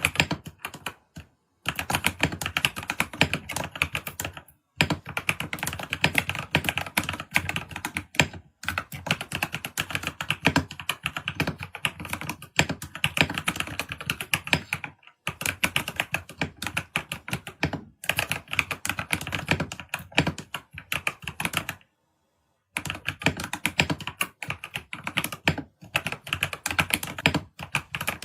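Fast typing on a computer keyboard: rapid runs of key clicks, broken by short pauses and one longer pause about three quarters of the way through.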